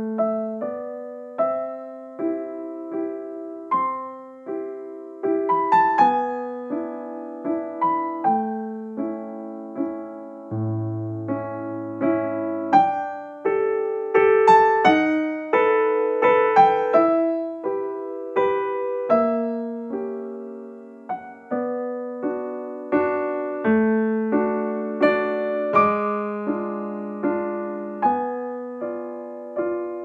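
Background piano music: a gentle melody of struck notes, each ringing and fading, over held lower notes.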